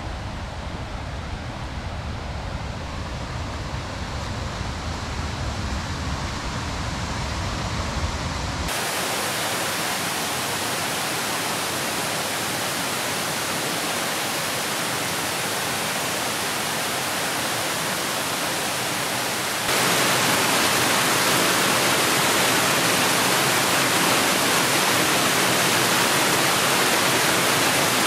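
Rushing water of a small forest waterfall and rapids, a steady hiss. For about the first nine seconds there is a low rumble under it. The water then changes abruptly to a fuller, even rush and steps louder again about twenty seconds in.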